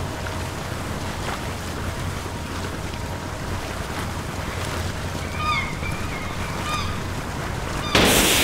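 Wind and choppy sea water washing steadily, with a few short bird calls between about four and seven seconds in. A sudden louder rush of wind noise comes in near the end.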